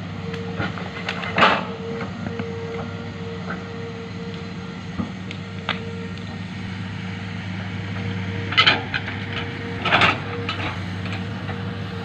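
Hitachi ZX200 excavator's diesel engine running steadily, with a steady higher hum over it. Sharp knocks break in once near the start and twice toward the end.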